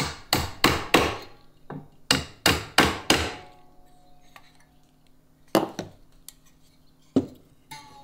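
Freshly strung wires in a wooden deep beehive frame plucked one after another to check their tension. There is a quick run of sharp plucks, each ringing briefly, then a few more spaced out. One wire, the bottom one, sounds a little loose.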